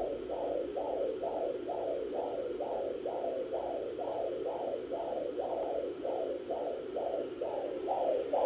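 Sonoline B handheld fetal Doppler's speaker playing an unborn baby's heartbeat as a steady, rhythmic whoosh at about two beats a second. That is a fetal heart rate of around 131 beats a minute, much faster than the mother's own heartbeat.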